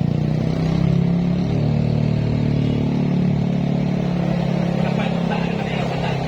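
Heavily loaded truck's engine running steadily, a deep, even drone.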